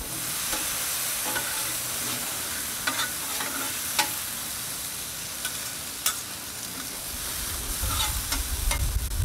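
Diced red potatoes sizzling in oil on the flat steel top of a Blackstone 22-inch griddle while two metal spatulas stir and turn them, scraping and clicking on the steel every second or so. A low rumble builds near the end.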